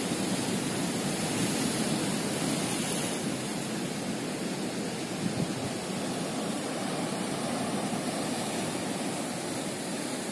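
Steady rush of sea surf breaking on a rocky, boulder-strewn shore.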